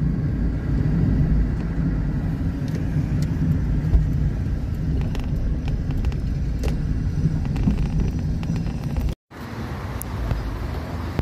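Car being driven, a steady low rumble of engine and tyre noise heard from inside the cabin. The sound cuts out sharply about nine seconds in and comes back quieter.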